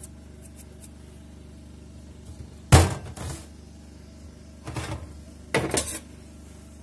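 Kitchen handling knocks at a steel sink: one sharp clack just under three seconds in as the flip-top plastic lid of a tin is snapped shut, then two shorter knocks and rattles of containers being moved near the end.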